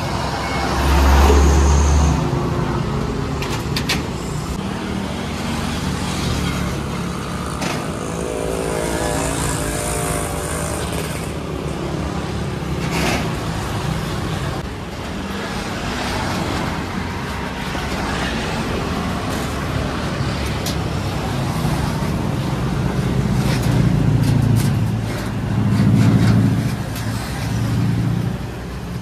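Steady street traffic of passing cars and motorbikes, with a loud low engine surge about a second in and swells near the end. Scattered sharp knocks and clanks from loose steel wardrobe panels being handled.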